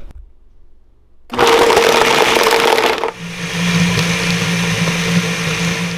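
Countertop blender starting up about a second in, blending ice and strawberries into a thick protein ice cream. About three seconds in its sound turns from a loud, rough grinding into a steadier, lower hum.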